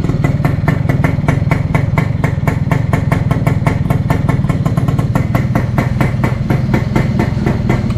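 Small two-stroke motorcycle engine (Suzuki RC100) idling steadily through a homemade rocket-style silencer. The exhaust note is soft, with a slight windy hiss.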